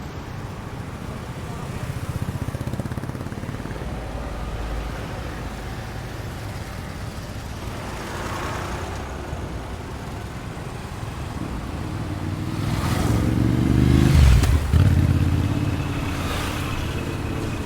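Road traffic with vehicle engines running steadily. One vehicle's engine grows louder from about eleven seconds in and passes close, loudest around fourteen seconds, then fades back into the traffic.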